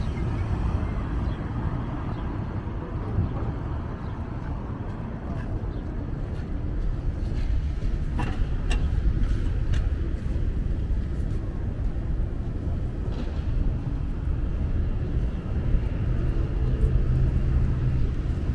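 Outdoor city ambience: a steady low rumble of street traffic, with a few light ticks about halfway through.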